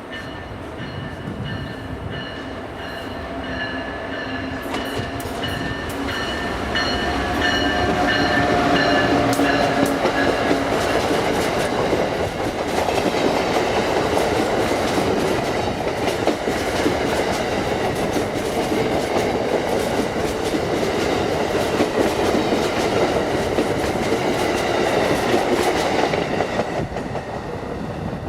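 Amtrak AEM7AC electric locomotive approaching with its electronic bell ringing in a repeating high tone and its horn sounding for about the first ten seconds. The train then passes close by, with a loud steady rumble and wheels clattering over the rails, fading near the end.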